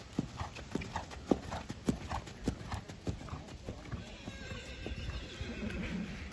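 Hoofbeats of a horse cantering on a sand arena: a run of dull thuds a few times a second, loudest in the first couple of seconds, with a stretch of breathy rushing noise about four seconds in.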